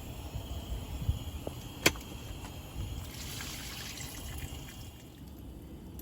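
Liquid trickling, with one sharp click a little under two seconds in.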